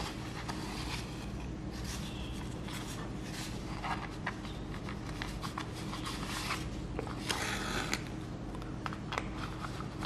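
Handling noise from hand-sewing on a paper practice sheet: a needle pushed through a punched hole and the thread drawn through, with soft paper rustles, scrapes and small clicks coming in short spells, over a steady low hum.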